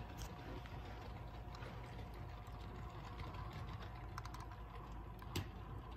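Model freight train rolling past as it slows down: small irregular clicks of the wheels over the track joints over a steady low hum of the running train, with one sharper click about five and a half seconds in.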